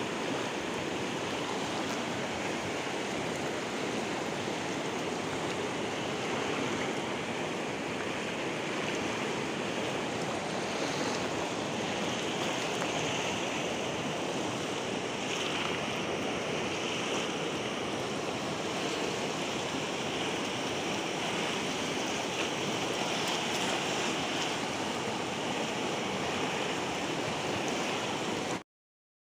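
Steady rush of a fast, flood-swollen river's current, with some wind on the microphone; it cuts off suddenly near the end.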